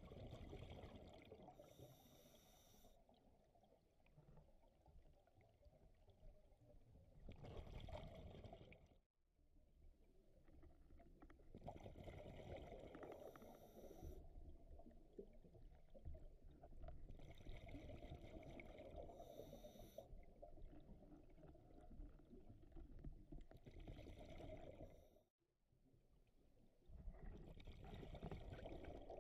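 Scuba diver breathing through a regulator underwater: a hiss on each inhale and a rumble of exhaust bubbles on each exhale, about one breath every five seconds.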